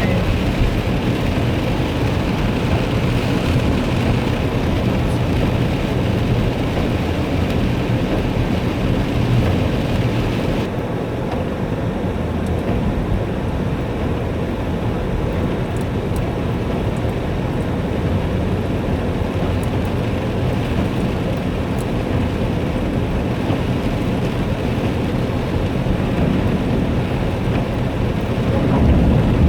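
Heavy rain pouring down steadily as a dense, even rush of noise.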